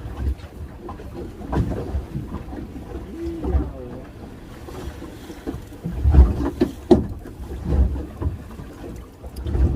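Choppy waves slapping against a small fishing boat's hull in irregular low thuds, with wind buffeting the microphone.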